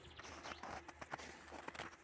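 Footsteps of a walker on snow, a few uneven steps with small sharp clicks among them.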